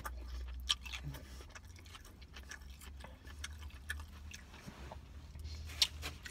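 A person chewing a mouthful of hot dog sandwich: irregular wet mouth clicks and smacks, the sharpest about a second in and near the end, over a steady low hum.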